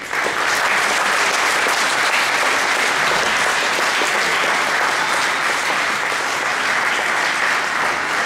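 Audience applauding in a hall, starting suddenly and holding steady.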